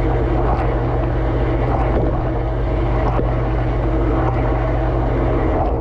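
Dishwasher running its wash phase, heard from inside the tub: the circulation pump hums steadily while water sprays against the dishes and the camera in a dense hiss. Right at the end the spray cuts off, leaving mostly the motor hum.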